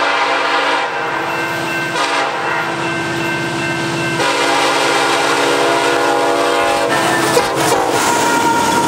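Union Pacific diesel freight train passing at speed: its locomotive horn sounds a chord for most of the first seven seconds, with short breaks, over the diesel engines. The horn's pitch bends as it passes. Then the freight cars roll by with a rumble, clatter on the rails and a steady high squeal.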